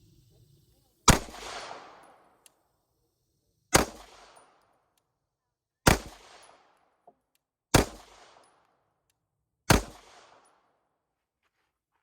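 Five 9mm shots from a Walther PDP F Series pistol, fired one at a time about two seconds apart, each followed by a short echo that dies away.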